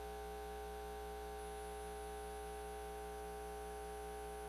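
Steady electrical mains hum with several steady tones held at an even level.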